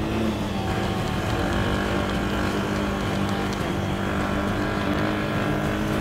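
A motor vehicle's engine running at a steady pitch, a constant hum with no revving.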